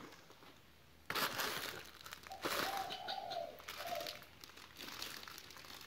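Clear plastic wrapping of a disposable 3M dust mask crinkling as it is handled, starting about a second in.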